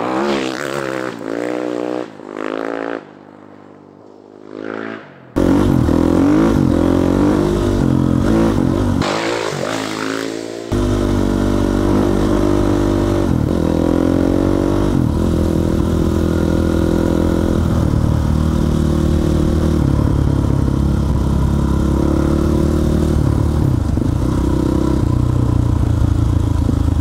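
Husqvarna dual-sport motorcycle engine revving with rising and falling pitch in the first couple of seconds, dropping away briefly, then running steadily under load as the bike rides along a gravel trail, heard close up from the bike.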